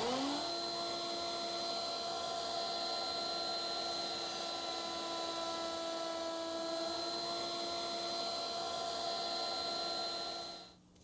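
Router in a router table spinning up and running steadily with a roundover bit, held at a constant pitch while the corners of a wooden box are rounded over in shallow passes. It winds down about ten and a half seconds in.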